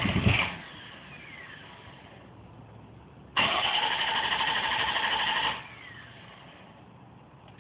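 Corvette's starter motor cranking the engine in two tries, the second about two seconds long. Each ends with a short falling whine, and the engine does not catch: a no-start.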